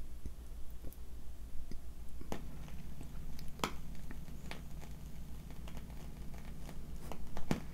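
Turntable stylus set down in the run-out groove at the end of a vinyl record, played through the turntable's built-in speakers. A click as it lands about two seconds in, then a low steady hum with a few sharp clicks as the record keeps turning, because the deck has no auto-return.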